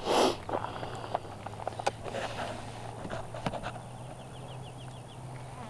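Footsteps of people walking outdoors, irregular scuffs and crunches, with a brief loud rustle at the very start. About four seconds in, a quick run of short high chirps.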